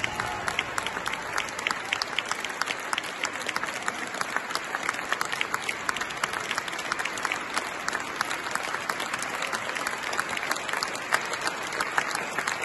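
Audience applauding, a dense, steady patter of clapping.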